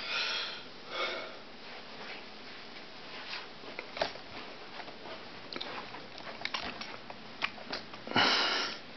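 A person breathing and sniffing close to the microphone in short hissing breaths, the longest and loudest near the end. There are a few faint clicks of camera handling in between.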